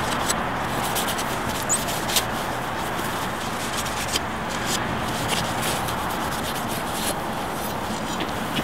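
Cloth buffing dried glass wax off a glass photographic plate: a steady dry rubbing with a few light clicks. It is the final cleaning of the ambrotype plate.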